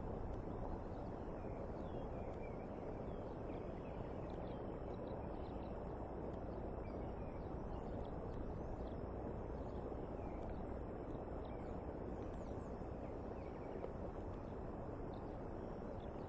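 Steady outdoor background noise from a nest camera's microphone, with faint high bird chirps scattered throughout.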